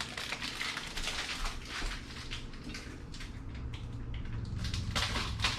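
Kitchen faucet running while hands are washed under it: an uneven rush and splatter of water, with a low steady hum underneath.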